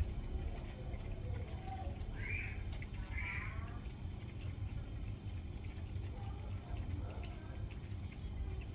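Orange cat meowing twice in quick succession, two short calls about a second apart, over a steady low rumble.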